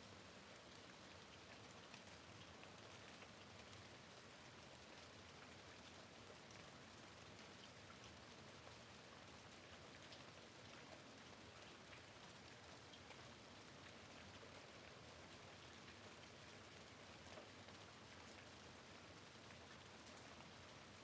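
Faint, steady rain: an even hiss dotted with many small drop ticks.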